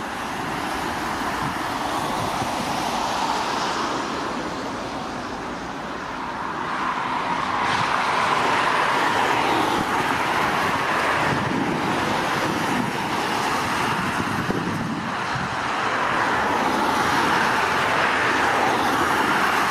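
Boeing 737-800's twin CFM56-7B turbofan engines at takeoff power: a steady rushing jet noise as the airliner rolls through spray on a wet runway, lifts off and climbs away. The noise swells about seven seconds in and stays loud.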